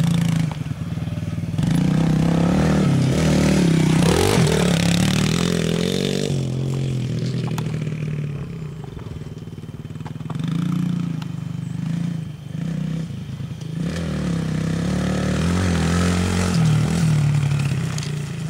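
Small dirt bike's engine revving up and down as it is ridden. The pitch climbs and falls with the throttle. It runs loud for a few seconds near the start and again near the end, easing off in between.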